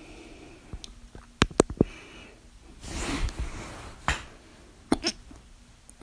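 A person hiccuping: short, sharp hiccups, three in quick succession about a second and a half in, one more about four seconds in and a quick pair near the end, with a noisy breath between.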